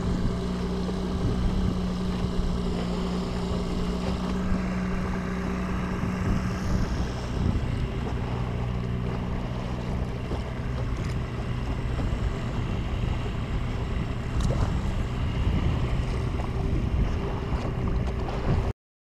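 Boat motor running steadily at trolling speed, with wind buffeting the microphone and water washing along the hull. The pitch of the hum shifts about a third of the way through, and the sound cuts off abruptly near the end.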